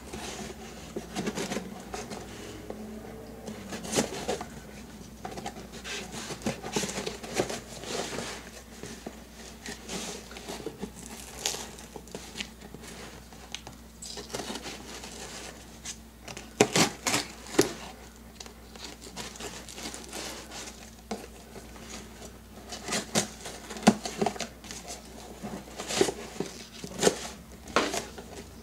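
Paper and cardboard packaging being handled: rustling and crinkling broken by irregular sharp taps and clicks, in busier clusters about 4 s in, around 17 s, and again near the end.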